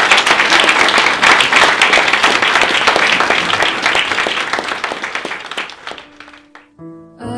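Audience applauding, the clapping dying away about six seconds in. The first notes of soft music come in near the end.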